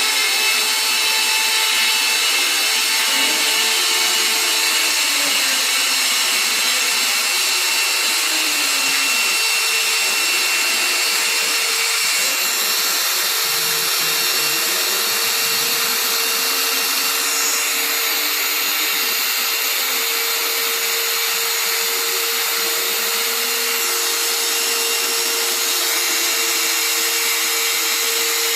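CNC router spindle running steadily while the machine cuts a profile toolpath: a constant hum under loud, even cutting noise.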